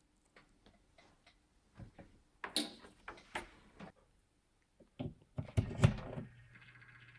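Small clicks and a rustle of the metal clips of a lure-turning rig, then several knocks as a plug is pushed into a wall outlet. About a second before the end, a steady electric hum starts: the small lure-turning motor switching on.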